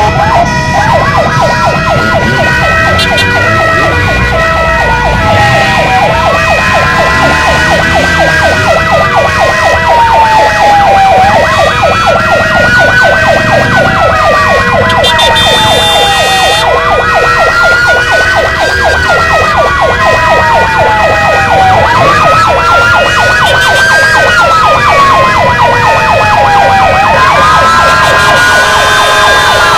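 Several ambulance sirens sound together. One slow wail rises and falls about every five seconds, over a second siren's rapid warble and steady tones.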